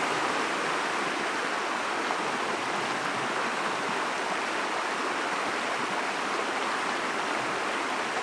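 Steady rushing of a clear creek flowing over a rocky bed.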